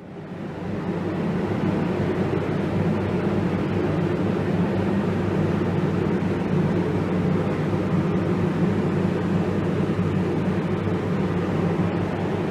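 Paint spray booth running: a steady low fan hum under an even rush of moving air, fading in over the first second.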